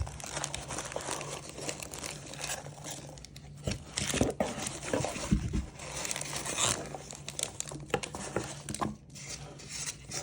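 Crinkling and rustling of packaging as a box of sealed trading-card packs is unpacked and handled, with a few soft knocks about midway.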